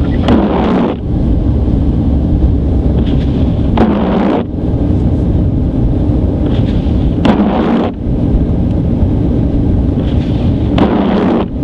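Inside a moving car on a snowy road: a steady low rumble of engine and tyres. Over it, a swish about every three and a half seconds, four times in all, from the windshield wipers clearing snow.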